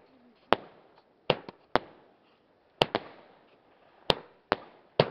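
Fireworks going off: about eight sharp bangs at uneven intervals, some in quick pairs, each trailing off briefly.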